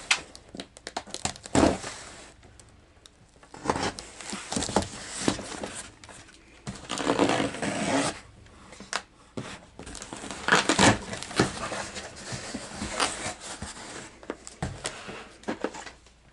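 A taped cardboard shipping box being opened by hand: a series of sharp rips and scrapes as packing tape is pulled and torn, then cardboard flaps and contents rustle and slide against each other.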